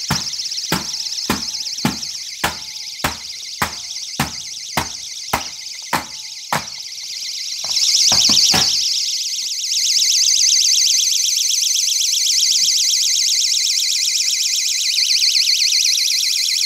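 GE door alarm siren going off: a shrill, fast-warbling electronic tone. For the first six and a half seconds it is joined by a regular knocking a little under twice a second, with a couple more knocks about eight seconds in. After that the siren sounds alone and louder.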